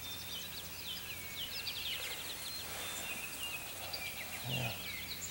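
Songbirds chirping in a busy morning chorus over open grassland: many short, quick whistled notes and chirps overlapping throughout.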